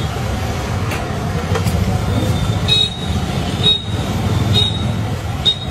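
Steady low rumble of road traffic, with four short high beeps about a second apart in the second half.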